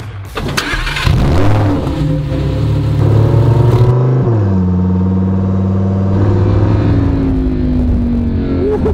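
Lamborghini Huracán EVO's naturally aspirated 5.2-litre V10, with a sharp burst of revs about half a second in. The engine then runs under way, turning duller about four seconds in, and its pitch eases slowly down near the end.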